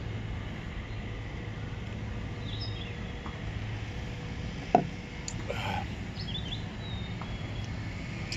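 Park ambience: a steady low rumble of distant traffic with birds chirping now and then. A little past halfway, a single sharp knock as a stainless-steel mug is set down on a wooden picnic table.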